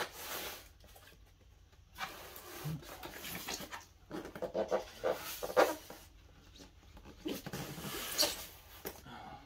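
White polystyrene foam shipping box squeaking and scraping in several bursts as it is gripped, tipped over and laid flat, foam rubbing against foam and hands.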